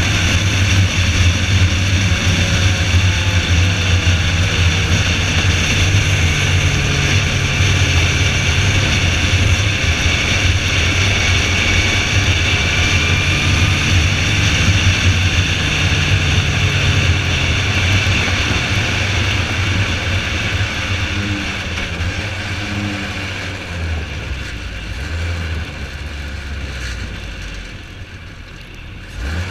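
Car engine pulling steadily at track speed, with a hiss of wind and road noise, as heard from inside the car. Over the last several seconds the engine note breaks up and the level falls as the car eases off.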